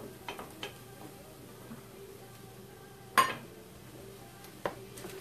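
Kitchen utensils knocking against a metal pan: a few light clicks, then one sharp metallic clank that rings briefly about three seconds in, and another small knock near the end.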